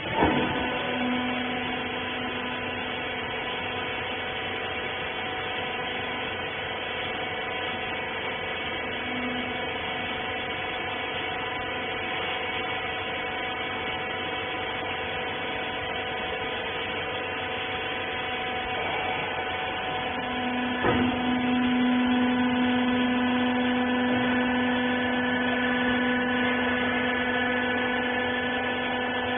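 Hydraulic rag compression baler running: the motor and pump give a steady multi-tone hum. A sharp clunk comes at the start, and another about two-thirds of the way through, after which the hum gets louder with a stronger low note.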